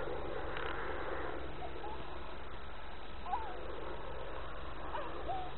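Steady outdoor background noise with a low hum, and a few short, high gliding calls: one about a second and a half in, one around three seconds in, and a couple near the end.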